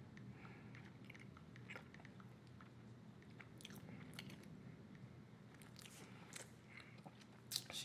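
Bubble gum being chewed close to the microphone: faint, irregular mouth clicks and smacks.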